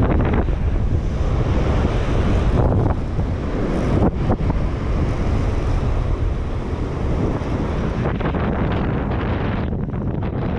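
Strong wind buffeting the microphone: a dense, low rumbling noise that eases slightly near the end.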